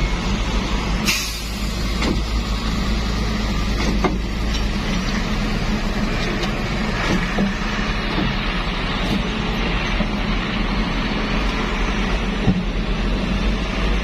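Heavy dump truck's diesel engine running steadily as the truck pulls forward and lowers its tipper body, with a short sharp hiss of released air about a second in.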